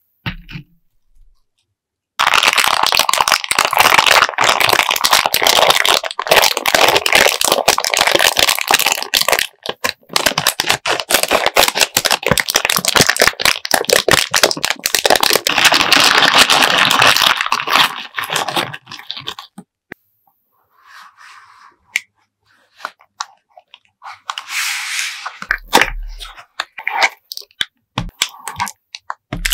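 Plastic candy bag crinkling as it is handled with sugar-coated sour candy belts inside, dense and continuous for about fifteen seconds. After that come sparse rustles and clicks, with more packaging crinkling near the end.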